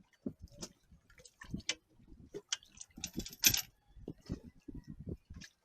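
Irregular clicks and knocks from hardware being handled, with a louder clattering rattle about three and a half seconds in.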